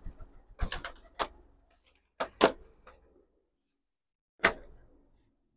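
Several sharp clicks and knocks at uneven intervals, with the loudest pair a little over two seconds in.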